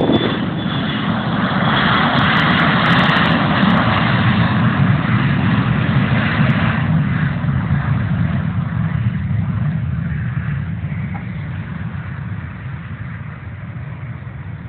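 Business jet's engines running at takeoff power as it accelerates down the runway and climbs away, loudest in the first several seconds and then fading steadily. A steady low engine drone, the Cessna 172's own engine idling, runs underneath.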